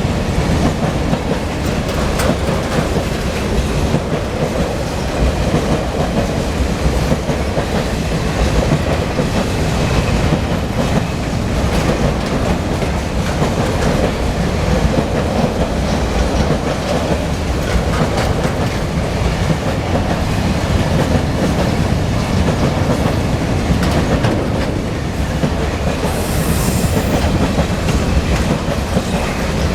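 Long freight train's wagons rolling past steadily, their wheels clicking over the rail joints. A brief high squeal comes near the end.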